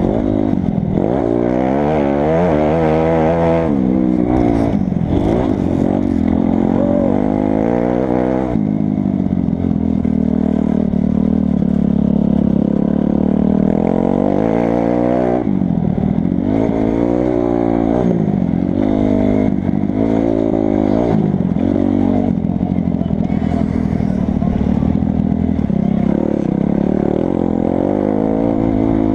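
2008 Kawasaki 250 dirt bike engine heard from on board, revving hard and dropping off again and again as the throttle is worked and the gears change. Its pitch rises and falls many times, with longer stretches held high and steady.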